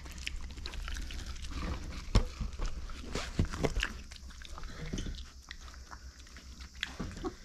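Micro pig eating pieces of corn on the cob, chewing and nosing at the food with irregular wet smacks and clicks; the sharpest click comes about two seconds in.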